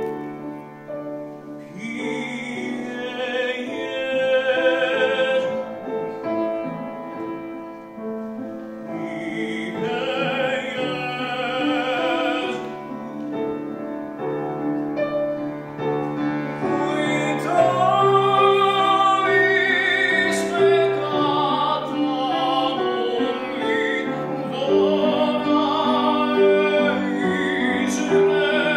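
Operatic male singing with vibrato, accompanied by piano. It grows louder about halfway through.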